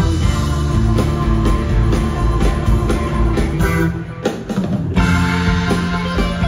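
Live rock band playing an instrumental passage, with electric guitars, bass and drum kit, heard from the audience. The drums and cymbals thin out briefly about four seconds in, under held guitar notes.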